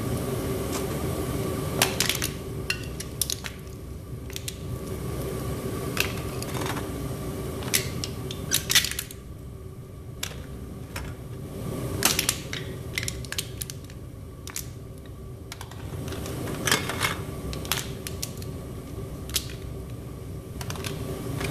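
Propane burner of a backyard metal-melting furnace running with a steady low rush, while empty aluminum soda cans are handled and dropped into the hot crucible to melt, giving scattered sharp metallic clinks and crinkles.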